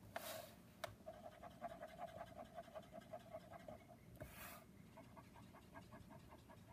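Faint, fast, even scratching of a Copic colorless blender marker's nib rubbed in small circles on cardstock, pushing alcohol ink aside to lighten the dots. Two short soft hisses, one at the start and one about four seconds in.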